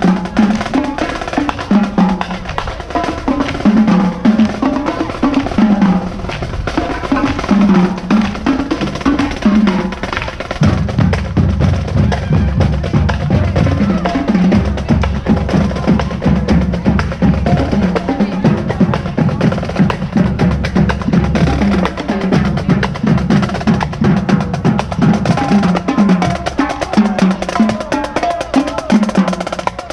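Marching band drumline playing a marching cadence: rapid snare drum rolls and rim clicks over pitched bass drums. From about a third of the way in until about two thirds, the low drums fill in more heavily.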